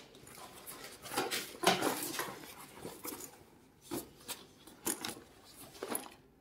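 Nylon duffel gym bag being handled: irregular fabric rustles and scrapes with several light clicks and knocks.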